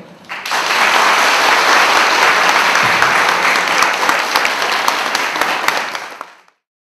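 Audience applauding, starting about half a second in, then fading out and cutting off near the end.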